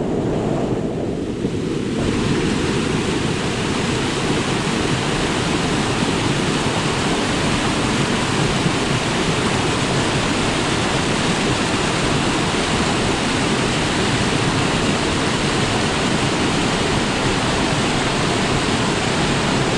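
Waterfall rushing steadily and loudly at close range, a continuous roar of falling water.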